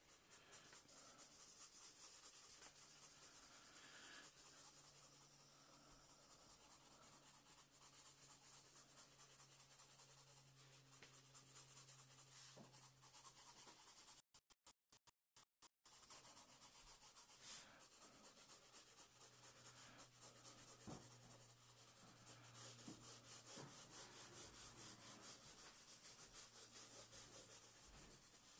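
Felt-tip marker scratching rapidly back and forth on paper as an area is hatched in with colour, faint, with a low hum under it. The sound drops out completely for a moment about halfway through.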